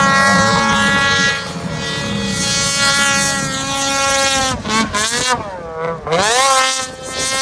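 Ski-Doo Summit 850 snowmobile's two-stroke twin engine running at high revs. Near the end the revs drop sharply twice and climb straight back up.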